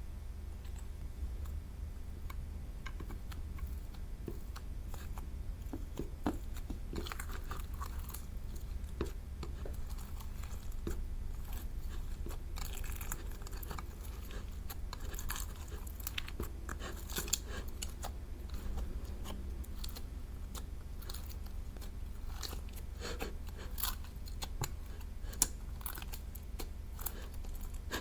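Slime being squished and worked by hand, giving irregular sticky crackles and clicks over a steady low hum.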